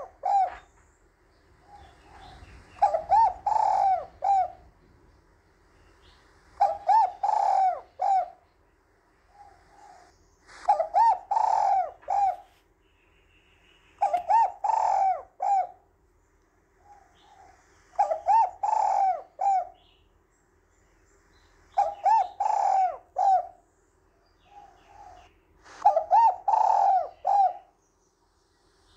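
A spotted dove cooing its song: a phrase of several throaty coos, repeated about every four seconds, each led by a soft short note. The phrase comes seven times.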